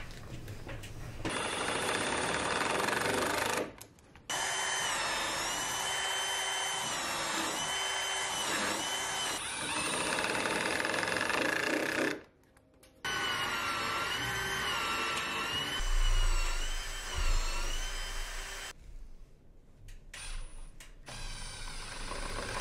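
Milwaukee cordless drill driving fasteners through hull planks into the boat's wooden frames. Its motor whines in long runs, the pitch dipping and rising as each fastener bites and seats, with brief stops between fasteners.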